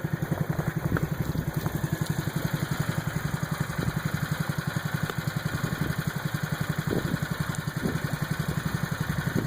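An engine idling steadily with an even low chug of about eight beats a second.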